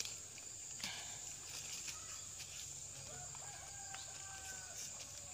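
Faint outdoor ambience: a steady high hiss, with a faint, drawn-out animal call about three seconds in.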